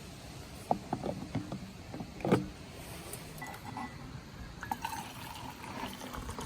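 Several short, light knocks and clatters of objects being handled, the loudest a little over two seconds in, over a low steady background; fainter scattered clinks follow.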